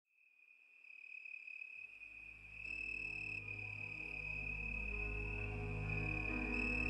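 Soft ambient music fading in over a steady high trill. Low held tones enter about two seconds in and more sustained notes join, building gently louder.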